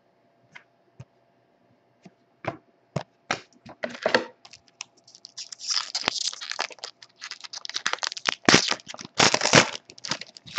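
A trading-card pack's wrapper being torn open and crinkled by hand, after a few light clicks at the start; the crackling is densest and loudest in the second half.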